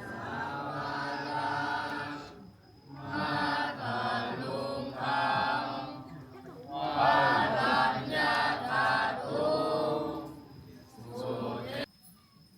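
A group of voices chanting in long phrases with short pauses, as in Buddhist temple chanting. The chanting cuts off abruptly near the end.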